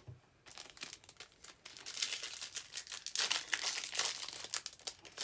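A trading-card pack wrapper crinkling and tearing as it is handled and opened, in a run of dry rustling bursts that are heaviest in the middle.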